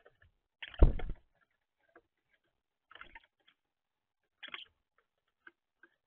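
European starlings working a peanut feeder: scattered taps and scrapes of beaks and feet on the feeder, with one heavier knock about a second in and a few short clicks later.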